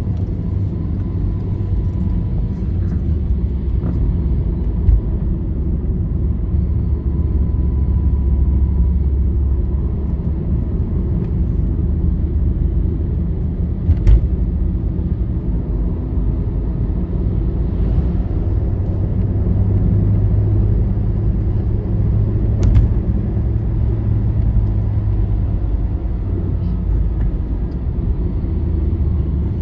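Road vehicle travelling on a highway: a steady low rumble of engine and tyres on the road, with two sharp knocks, one about halfway through and one about three-quarters of the way in.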